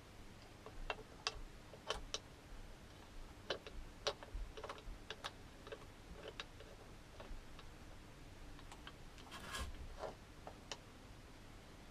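Faint, irregular metal clicks and taps of bolts being handled and threaded finger-tight into a motorcycle engine cover, with a short scraping rustle about nine and a half seconds in.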